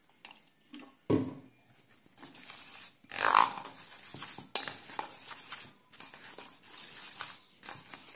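Steel spoon stirring thick vegetable batter in a stainless steel bowl, wet scraping and clinking against the bowl's sides as water is mixed in to thin it. A knock about a second in, and a louder scrape a little after three seconds.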